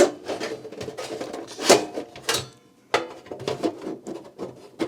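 Plastic clicks and knocks, irregular, as a MiniDisc is pushed into and worked against the claw-type loading mechanism of a Sony MDS-JE480 deck. Two sharper knocks come about a second and a half and two seconds in.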